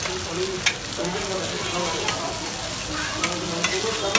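Eggs sizzling on a large flat street-food griddle, a steady hiss, while metal spatulas clink and scrape against the griddle plate several times.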